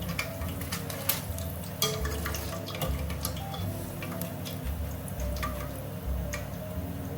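Background music with a low bass line and a simple melody, overlaid with light, irregular clicking and ticking.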